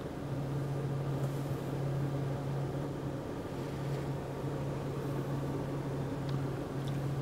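Steady low hum of a car heard from inside its closed cabin as it drives along: the engine running with tyre and road noise.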